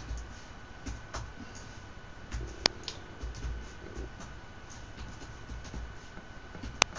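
Slow, irregular typing on a laptop keyboard, light keystroke clicks with a sharper click about two and a half seconds in and another near the end.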